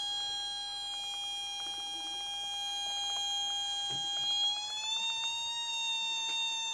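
Mini theremin sounding a steady electronic tone whose pitch glides up a little about four and a half seconds in as a cat comes near its antenna. A soft thump about four seconds in as the cat lands on the table.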